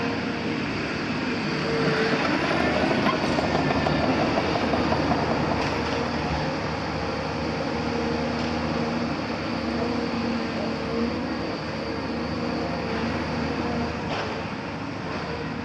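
Cat 340F excavator working, its Cat C9.3 ACERT diesel running with a steady hydraulic whine over metallic rattling and clanking as the machine moves. It is loudest through the first half.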